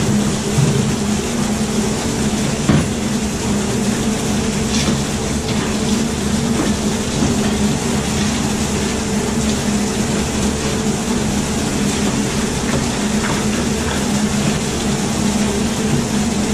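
RIDGID K9-306 flexshaft drain machine running steadily, its spinning cable working inside a grease-clogged 3-inch drain line, with one sharp knock about three seconds in.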